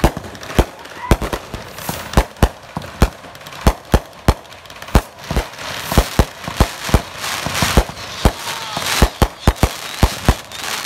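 Fireworks display: aerial shells bursting in a rapid, irregular string of bangs, about two a second, with a crackling hiss between the bangs.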